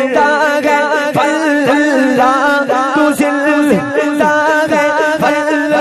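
Devotional naat music: a wavering, ornamented melodic line over a steady held drone, without words.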